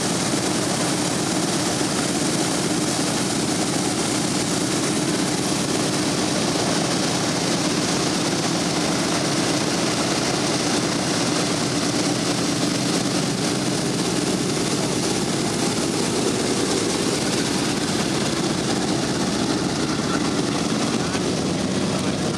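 Boeing B-17's four Wright R-1820 Cyclone nine-cylinder radial engines running at low power with propellers turning as the bomber taxis, a loud, steady, even sound throughout.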